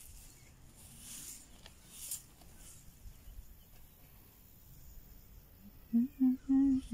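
Fingers scraping and scratching through loose, gravelly soil while digging up potatoes by hand, a faint rustle with a couple of soft scrapes. Near the end a louder low hum comes in a few short pulses.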